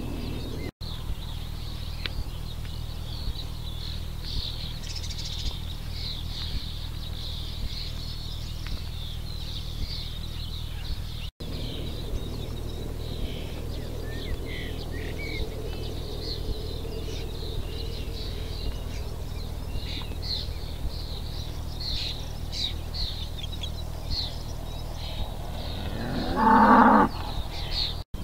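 Back-bred aurochs (Taurus cattle) mooing once near the end, a loud call lasting about a second. Birds chirp throughout over a steady low hum.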